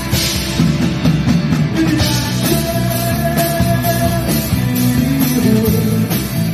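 A live rock band playing: electric guitars over a drum kit with a steady beat of drum and cymbal hits, and a note held for about two seconds in the middle.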